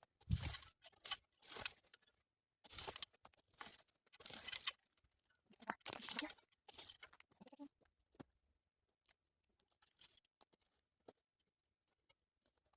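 Dry twigs, brush and leaves crunching and rustling in irregular bursts as garden debris is cleared. The bursts thin to a few faint crackles after about eight seconds.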